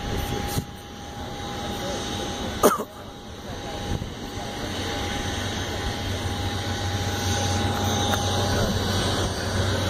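Jet aircraft engine noise: a steady roar with a thin whine, and a low rumble that builds from about halfway through. A single sharp knock comes about a quarter of the way in, the loudest moment.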